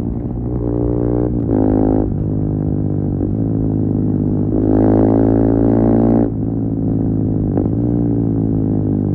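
KTM 390 Duke's single-cylinder engine through an Akrapovic slip-on exhaust with the catalytic converter removed, pulling up in pitch and dropping sharply at each gear change. The loudest pull comes about five seconds in and cuts off suddenly about a second later.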